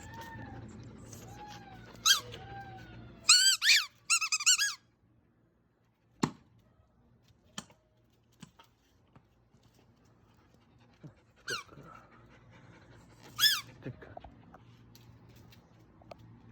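A dog chewing a squeaky rubber ball, giving short runs of high squeaks with quiet gaps between. There is a single sharp knock about six seconds in.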